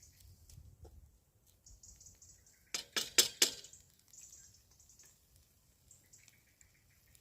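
Cookware clinking: four sharp metallic clinks in quick succession about three seconds in, over the faint sizzle of paella frying in the pan.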